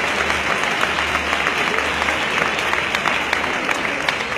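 Audience applauding steadily: many hands clapping at once in a dense, continuous patter.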